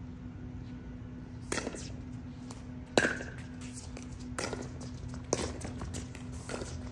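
Pickleball rally: paddles hitting the plastic ball about five times, roughly one sharp pock every second or so, the loudest strike about three seconds in. A steady hum runs underneath.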